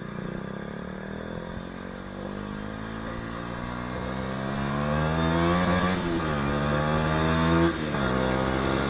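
KTM Duke 125's single-cylinder four-stroke engine pulling hard under acceleration, its pitch climbing steadily. It drops sharply about six seconds in and again near the end, each time at a quick upshift, then climbs again.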